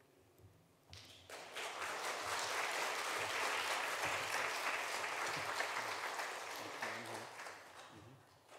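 Church congregation applauding: the clapping starts about a second in, holds steady, and fades out near the end.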